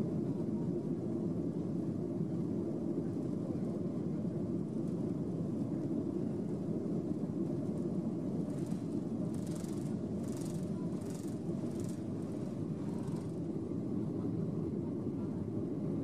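Boeing 737 jet engines at takeoff thrust, heard inside the cabin as a steady, loud rumble during the takeoff roll and liftoff. A few brief hissing puffs come through after about nine seconds.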